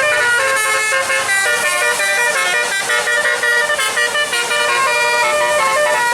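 A bus's 'telolet' musical air horn playing a tune: a continuous run of horn notes that change pitch several times a second.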